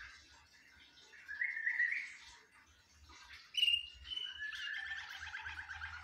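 Domestic canary singing in phrases. A short rising run of notes comes about a second in, a sharp high note, the loudest part, about halfway through, then a fast rolling trill from about four seconds on.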